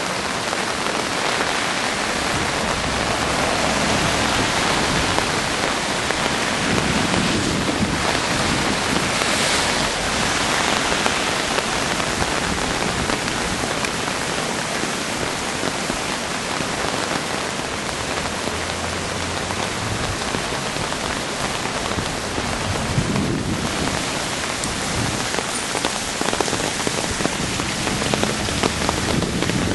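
Heavy rain falling steadily, hissing on the street and the standing floodwater. Near the end a vehicle's engine begins to rise in under the rain.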